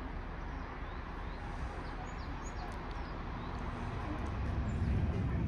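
Small birds giving a few short chirps over a steady low background hum, which grows louder near the end.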